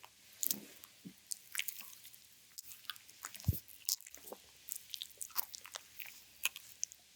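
Oiled hands massaging a bare belly: irregular wet squelches and clicks, with a low stomach gurgle about three and a half seconds in.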